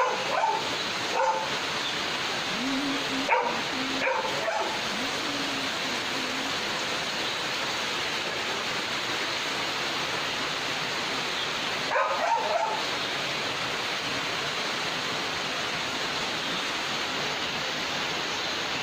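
Rainwater pouring steadily off a terrace roof in heavy rain. A dog barks a few times: near the start, a few seconds in, and again about twelve seconds in.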